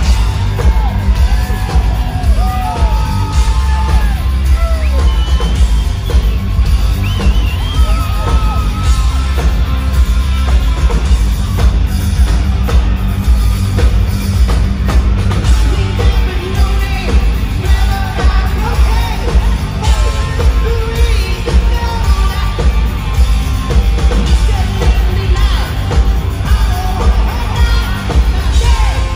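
Hard rock band playing live at full volume in an arena, heard from the crowd: electric guitar, bass and drums with a heavy, steady low end and hall echo.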